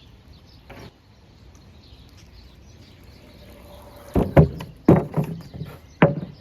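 Kick scooter clattering on a street ramp and wet road: a quiet stretch, then a quick run of sharp knocks and clacks starting about four seconds in, the last and loudest near the end.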